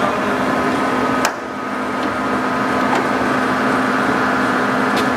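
TOS SU125 large engine lathe running with its carriage power feed engaged, a steady mechanical hum and whine. A sharp clunk from a control lever comes about a second in, with lighter clicks later.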